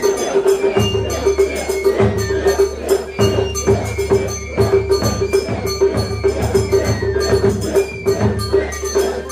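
Japanese festival percussion: rhythmic metallic clanging and jingling over low drum beats about once a second, with a steady pulsing tone beneath.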